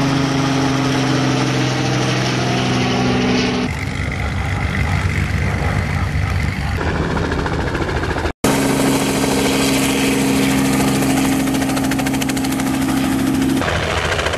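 Light-aircraft and helicopter engines running with a steady, loud hum, in several short clips that change abruptly: a different, noisier engine sound about four seconds in, a brief dropout a little past the middle, and another change near the end.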